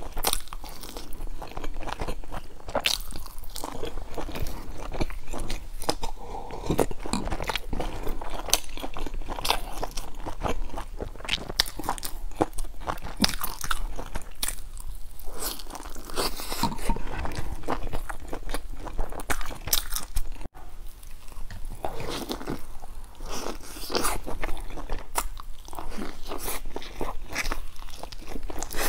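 Chewing and biting close up: a person eating large pan-fried stuffed buns with browned, crisp crusts, giving a run of irregular crunches and mouth clicks.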